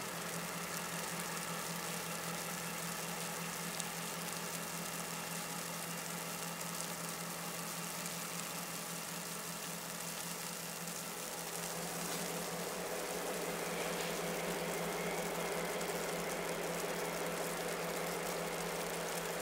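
Diesel freight locomotive engine running steadily, a low drone under a constant hiss, growing slightly louder about twelve seconds in.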